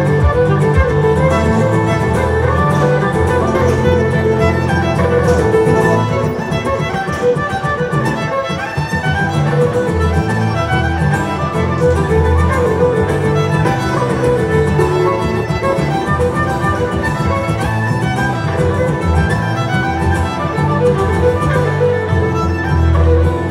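Instrumental music led by a fiddle, over a low bass line.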